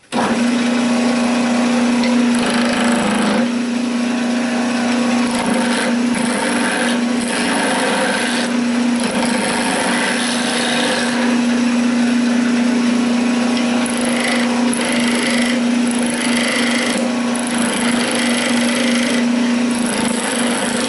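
Wood lathe running with a steady motor hum while a hand-held turning chisel cuts a spinning wooden spindle, the rough hiss of the cut swelling and fading as the tool moves along the work.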